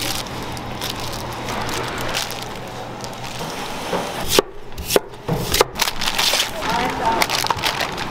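Bamboo skewers clicking and knocking as rice-cake pieces are threaded onto them, with a handful of sharp knocks about halfway through over a steady hum of background noise.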